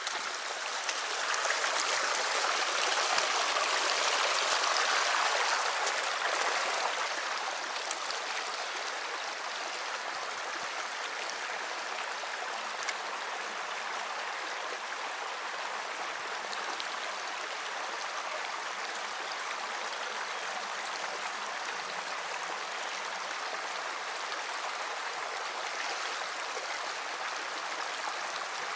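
Small rocky stream running and splashing over stones in a shallow riffle. It is louder for the first several seconds, then settles to a steady level.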